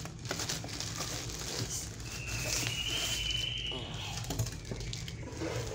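Plastic wrapping crinkling and rustling as a boxed voltage stabilizer is handled and pulled out of its packing, with small irregular crackles throughout.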